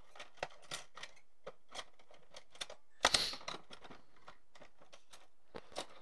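Small metal spatula scraping and tapping while spreading solder paste to reball a chip: irregular light clicks, with a louder scrape about three seconds in.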